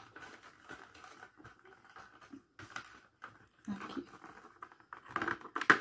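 Bottle of body oil being pressed into its slot in a cardboard gift-box cradle: faint scattered taps, scrapes and rustles of bottle against card, busier near the end.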